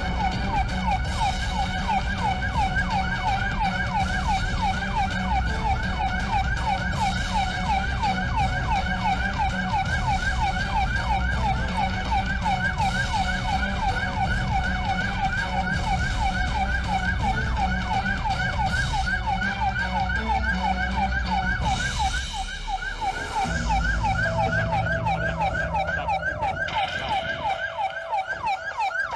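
Police car siren in a fast yelp, its pitch sweeping over and over several times a second, over a steady low rumble of traffic and engine.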